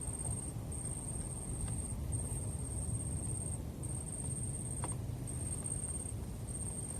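Outdoor ambience: a steady low rumble under a thin, high whine that stops and starts every second or so, with one faint click about five seconds in.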